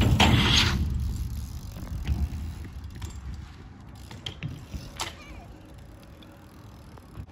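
BMX bike rolling close by on a skatepark ramp: a loud rush of tyres on the ramp surface in the first second, then fading rolling noise with the rear hub's freewheel ratcheting as it coasts. A sharp knock about five seconds in.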